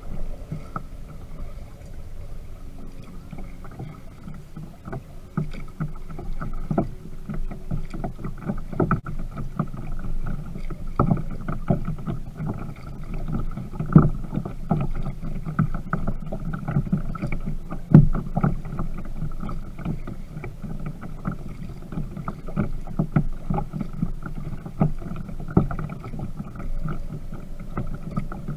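Kayak paddling on calm harbor water: paddle blades splashing and dripping at an irregular pace, with sharp knocks carried through the plastic hull of a Viking Profish Reload sit-on-top kayak.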